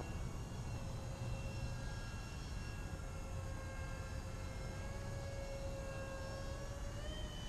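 Distant RC model airplane's engine droning steadily in flight, its pitch drifting slowly and rising slightly near the end, over a steady low rumble.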